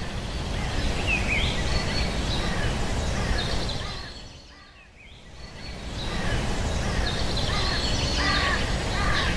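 Outdoor ambience: birds chirping repeatedly over a steady noisy background. It fades down about four seconds in and comes back up a second or so later.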